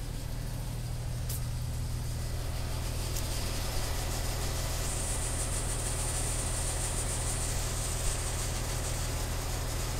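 Engine of a Selwood mobile pump set running at a steady low drone while pumping sewage. A high hiss comes in for a few seconds midway.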